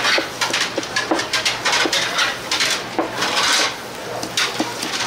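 Dishes and metal utensils clattering and scraping, a quick, irregular run of knocks and short scrapes.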